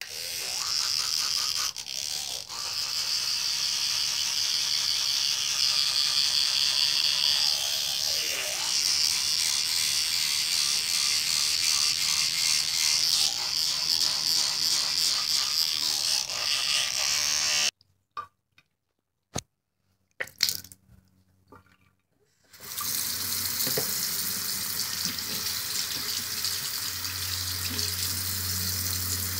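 Bathroom sink faucet running, a steady rush of water into the basin. It cuts off suddenly about two-thirds of the way through, leaving a few seconds of near silence with a few clicks. Then the water runs again until the end.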